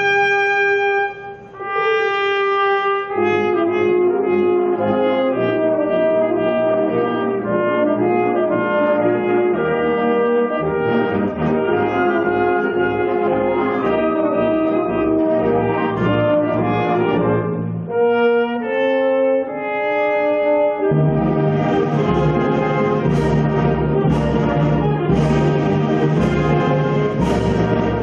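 Wind band accompanying trumpet and euphonium soloists, playing held brass notes. About two-thirds of the way in there is a short passage of separate notes, then the whole band comes back fuller with repeated percussion strokes.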